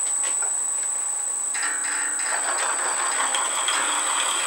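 Homemade milling-drilling machine turning slowly, about 140 rpm, as a 20 mm twist drill bores into a steel plate. There is a steady high whine, and about one and a half seconds in a grainy scraping of the cut grows louder.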